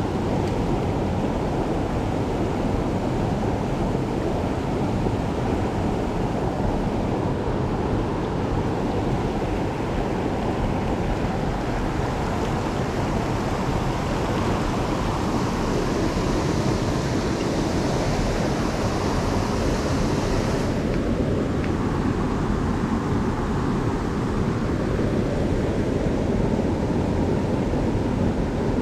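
Fast-flowing stream water rushing steadily, with a brief extra high hiss in the second half that cuts off suddenly.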